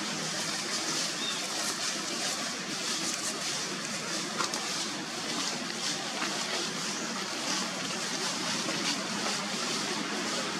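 Steady outdoor background hiss with light, irregular rustling of leaves and thin branches as a baby monkey climbs and clings in them.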